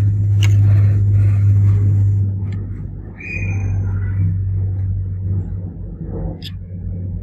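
A loud, steady low mechanical hum that weakens after about five seconds, with a few light clicks.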